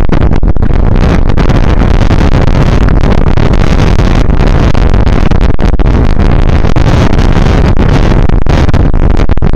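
Wind buffeting the microphone of a camera on a moving bicycle: a loud, steady rush with a deep rumble.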